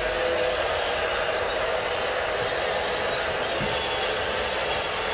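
Battery-powered G scale toy trains running on plastic track: a steady whir of small motors and wheels. A hum of a few steady tones stops about half a second in.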